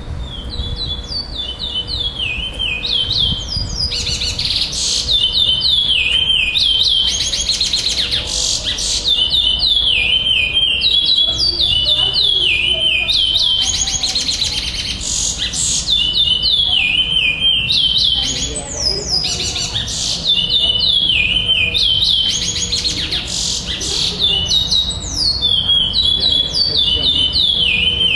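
A caged male chestnut-bellied seed finch (curió) singing its contest song: phrases of clear, quick, descending whistled notes, repeated again and again with only short breaks.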